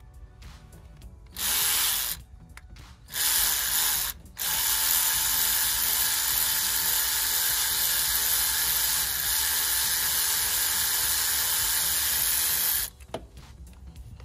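A 12-volt cordless ratchet running in three bursts as it spins out bolts: two short runs of under a second each, then one long run of about eight seconds that stops sharply near the end.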